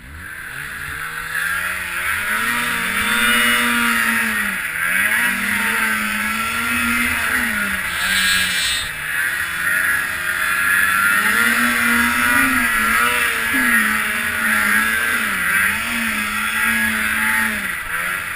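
Snowmobile engine revving high while riding through deep snow. Its pitch keeps rising and dipping with the throttle over a steady hiss, and it climbs from quiet over the first couple of seconds.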